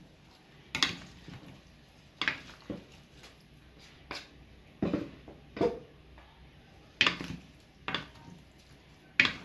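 Wooden salad servers tossing pasta salad on a large serving plate: about nine irregular knocks and clacks of the wooden spoon and fork against the plate and each other.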